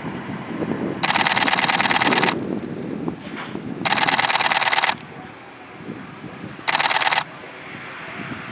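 Camera shutter firing in rapid bursts: three bursts of fast clicking, the first about a second and a half long, the second about a second, and a short one near the end, over a low steady background noise.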